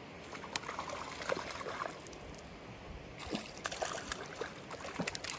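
A trout thrashing and splashing at the surface of shallow creek water in two bouts of irregular splashes, over the steady rush of the creek.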